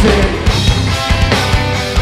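Rock band playing live, with a drum kit keeping a steady beat under electric guitars.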